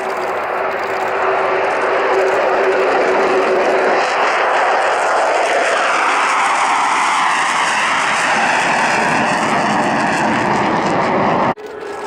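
Jet engines of a pair of twin-engine F-15J fighters running at full power as they take off and climb out. The loud steady rush shifts into a sweeping, phasing tone as they pass. The sound cuts off abruptly near the end to a quieter jet sound.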